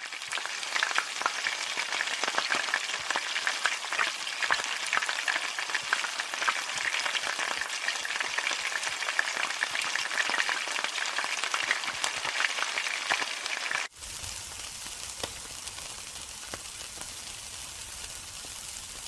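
Food frying in hot oil in a wok, a dense crackle with many sharp pops. About 14 seconds in it cuts suddenly to a quieter, steadier sizzle of meat skewers cooking on a grill.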